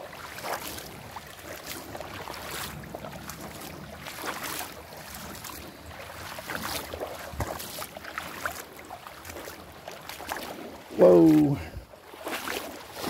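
Wading steps through a shallow creek over a sand and gravel bed, the water sloshing and splashing at each irregular step. Near the end a man's voice says "whoa" as he steps into a deeper spot.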